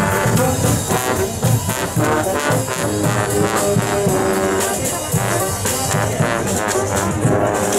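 A brass band playing, with trombones and trumpets prominent.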